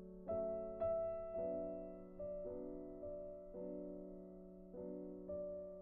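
Slow, soft background piano music: single held notes struck about every half second to a second, each fading away, over a steady low sustained tone.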